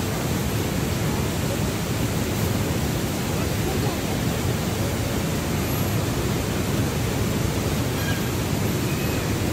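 Steady rushing of river water, an even noise with no let-up.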